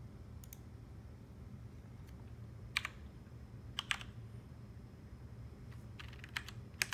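Sharp clicks of someone working a computer's mouse and keys. A faint click comes near the start, single and paired clicks about three and four seconds in, and a quick run of clicks near the end, all over a faint steady low hum.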